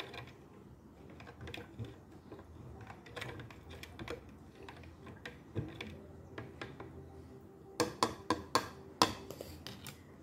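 A small plastic scoop clicking and scraping against the inside of a clear plastic jar of water, in scattered light taps, with a quick run of louder clicks near the end.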